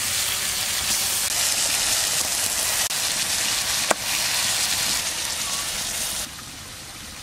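Lote fish (Bombay duck) frying in hot mustard oil in a kadai: a steady, dense sizzle with one sharp click about four seconds in. A little after six seconds the sizzle drops suddenly to a quieter hiss.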